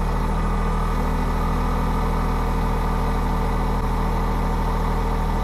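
Compact tractor engine running steadily under the operator, with an even low drone.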